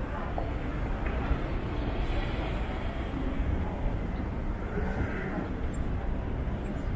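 Steady city-street ambience: a low, even hum of traffic and general urban noise, with no single sound standing out.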